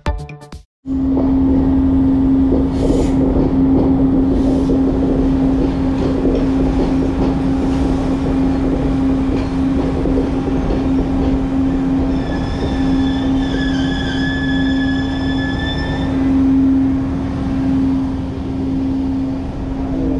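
Sri Lankan passenger train running into a station, heard from on board by an open door: a steady drone over rumbling wheel and track noise. For about four seconds midway a high metallic squeal rises over it as the train slows.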